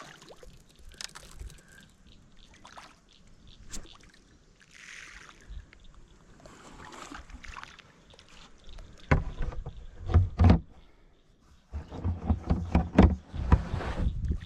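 Water splashing and sloshing in irregular bursts, faint at first and loud from about nine seconds in: bream hitting fish food at the surface.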